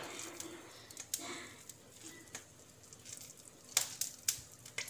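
A hand kneading and squeezing a damp puffed-rice dough in a stainless steel bowl: faint squishing and rustling, with a few sharp clicks, the loudest ones in the last second or so.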